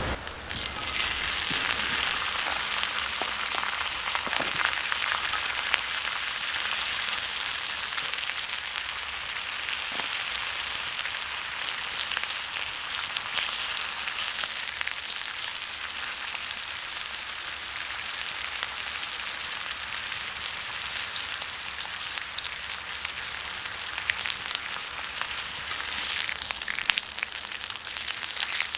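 Meat sizzling on an iron griddle plate heated over a campfire: a dense, steady crackling sizzle that swells up about a second in.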